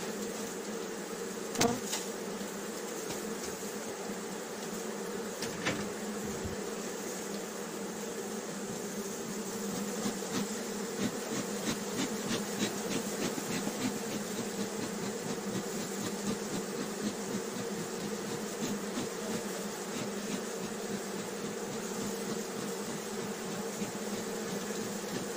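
Honeybee colony buzzing steadily over an open hive, a defensive, stinging colony. There is a sharp knock about two seconds in, another a few seconds later, and a run of light clicks through the middle.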